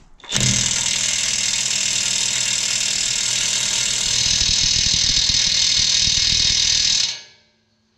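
DeWalt half-inch impact wrench hammering steadily and bloody loud for about seven seconds on a 41 mm tine nut, then stopping suddenly. The factory-tight nut does not break loose.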